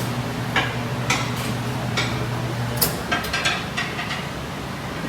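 Scattered light metallic clinks and clicks, a dozen or so at uneven intervals, over a steady low hum.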